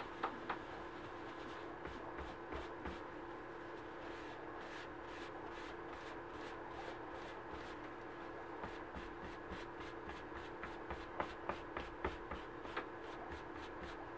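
Leather dye being scrubbed onto a small leather key chain with a dye-soaked pad over paper towels, with gloved hands: quick, repeated rubbing strokes, with a few sharper taps near the start and again about two-thirds of the way through. A steady hum sits underneath.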